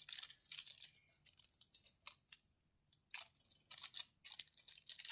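Quiet rustling and crinkling of small plastic packaging with light clicks, in short spells with brief pauses, as a cube adjusting tool is unwrapped.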